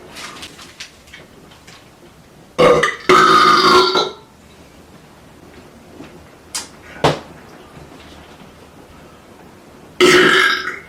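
A man burping loudly: a short burp about two and a half seconds in, straight after it a longer one of about a second, and another near the end. Two short sharp clicks come in between.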